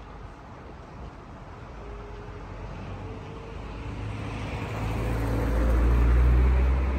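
A motor vehicle approaching and driving close past, its low engine rumble growing louder to a peak about six seconds in and starting to fade just before the end, over background traffic noise.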